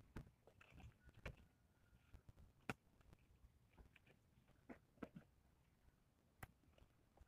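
Near silence, broken by a few faint scattered clicks and taps.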